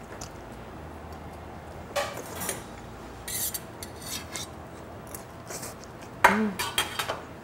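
Metal fork scraping and clinking against a small stainless steel plate, in several short bursts, loudest in a cluster near the end.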